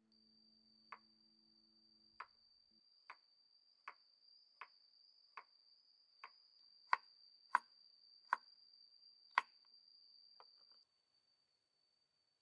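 Kitchen knife slicing a carrot on a wooden cutting board: about a dozen sharp chops, roughly one every 0.7 seconds, loudest past the middle, stopping shortly before the end.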